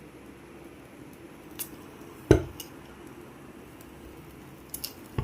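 A single sharp pop, the hydrogen from zinc granules and dilute hydrochloric acid igniting at the mouth of a test tube, a little over two seconds in. It comes among several light glassware clinks, with two quick ones near the end.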